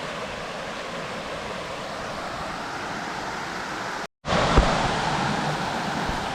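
Steady rushing outdoor noise on the trail, the kind made by moving air or running water, broken about four seconds in by a short gap of dead silence where the footage cuts. A single low thump follows just after the gap.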